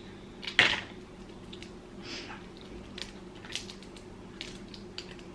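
Boiled blue crab shell being broken apart by hand: one loud crack about half a second in, then small snaps and clicks as the shell is picked apart.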